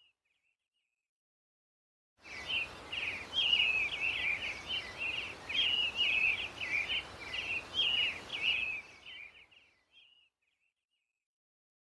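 A bird calling in a rapid run of high chirps over a faint background hiss. It starts suddenly about two seconds in and fades out near the end.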